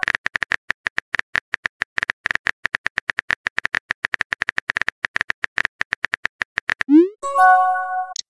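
Rapid keyboard-tap clicks from a texting app as a message is typed, then about seven seconds in a rising whoosh and a short chime as the message is sent.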